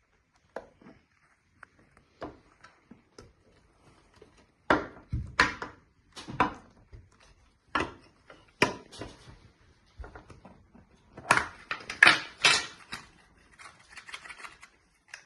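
A small metal Pokémon card tin being handled and opened: a series of irregular clicks, taps and clatters, the loudest coming in two clusters, one about a third of the way in and one near the end.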